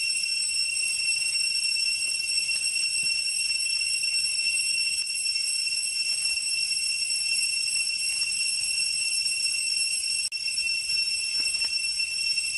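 Steady shrill ringing of an insect chorus, several high tones held without a break, with a few faint light clicks beneath.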